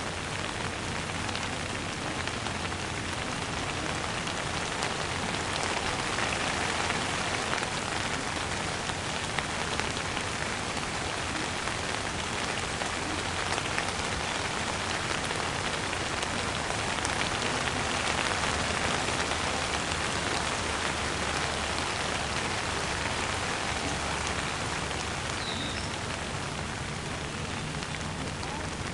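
Steady rain falling, an even hiss of many drops with slight swells in intensity.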